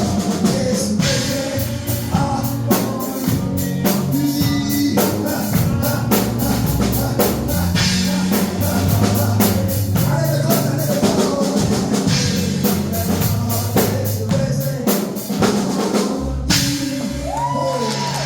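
Live gospel band music: a drum kit keeps a steady beat under sustained bass and keyboard notes. Near the end, voices sing out over the band.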